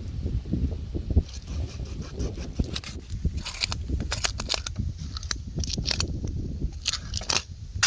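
A knife scraping and cutting at a large parrot fish: a run of short crackling scrapes, thickest in the second half.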